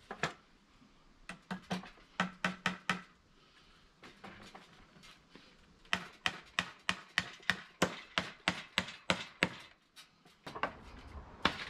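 Claw hammer driving nails into timber. About seven blows come in quick succession, then after a pause a steady run of about fifteen blows at roughly four a second.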